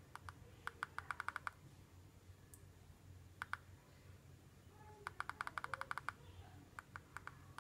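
Plastic keypad buttons of a JioPhone feature phone clicking in quick runs as the navigation key is pressed repeatedly to scroll the recovery menu. There is a run of about eight fast clicks about a second in, two more in the middle, and a run of about ten a little past five seconds in.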